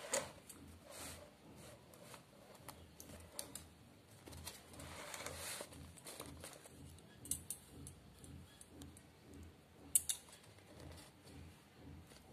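Faint handling noise: soft rustles and scattered light clicks of a notebook, pen and phone being moved, with one sharper click about ten seconds in.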